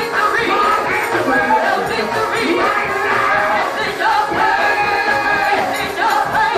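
Gospel singing: several voices singing together over music.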